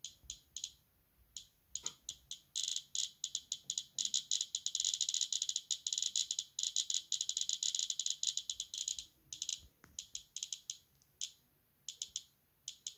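Radiacode 101 radiation detector clicking, one short high beep-click for each count. The clicks are sparse at first, turn into a rapid, near-continuous stream from about two and a half seconds in to about nine seconds, then thin out again. The fast clicking is the detector picking up the raised radiation from the radium luminous paint on the compass dial.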